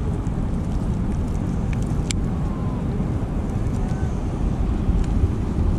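Steady low rumble of background noise, with one sharp click about two seconds in.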